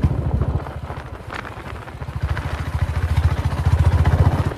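Royal Enfield Bullet 350's single-cylinder engine running under way with an even beat. It eases off about half a second in and gets louder again from about two and a half seconds, as the throttle opens.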